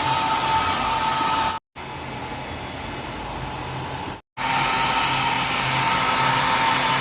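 Philips BHC010 1000 W hair dryer blowing: a steady rush of air with a whine. It cuts out briefly about one and a half seconds in, runs quieter without the whine for a couple of seconds, cuts out again and comes back at full strength.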